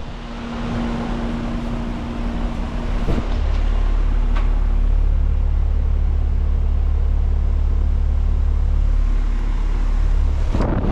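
1998 Bryant 661c heat pump outdoor unit running in heat mode with a steady hum. About three seconds in, a deep low rumble sets in and holds steady until a sudden change near the end.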